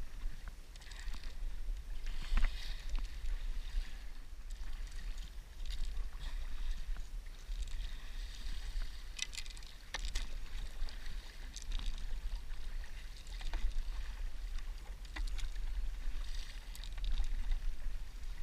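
Stand-up paddle strokes in calm sea water: the blade dips and pulls, and water splashes and drips off it, swelling every couple of seconds. Water ripples along the nose of the board, over a low steady rumble.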